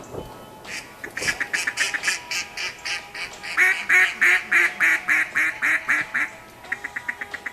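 Duck quacking in a long rhythmic series, about four quacks a second and loudest around the middle, then a quicker, fainter run of short notes near the end.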